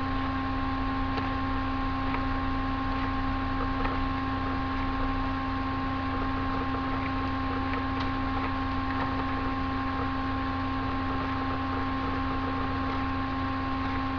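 A steady electrical hum over a hiss. A few faint soft ticks run through it, the sound of playing cards being dealt onto a table.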